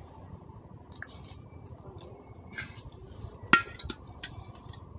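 Fish being put into an aluminium cooking pot. There are a few soft scrapes and rustles, then a sharp metallic clink against the pot about three and a half seconds in that rings briefly, followed by a couple of lighter clicks.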